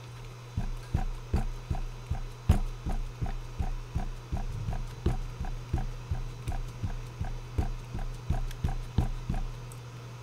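Ink pad dabbed repeatedly onto a rubber stamp on a clear stamping block to ink it, a steady run of soft taps about two to three a second.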